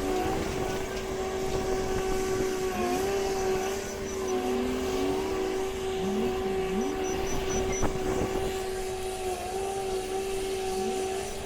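Komatsu WA500 wheel loader at work: a steady whine over the engine, with the pitch rising and falling several times as it revs, and one sharp knock about eight seconds in.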